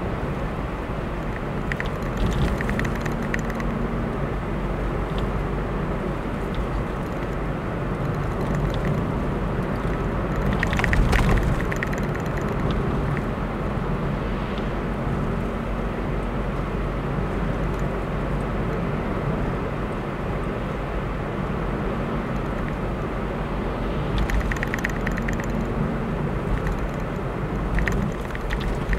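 Steady road noise from a car driving on an asphalt road: a constant low engine and tyre rumble, with light rattling clicks now and then and one louder sudden burst about eleven seconds in.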